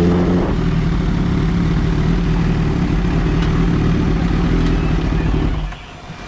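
Kawasaki Ninja H2's supercharged inline-four engine running. It eases off about half a second in, then idles steadily, and cuts off suddenly near the end as the engine is switched off.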